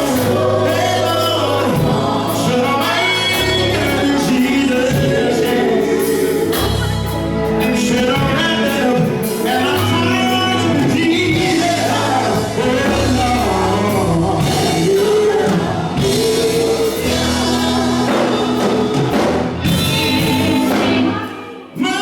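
Gospel-style music: a group of voices singing over a band with a low bass line. The sound briefly drops away about a second before the end.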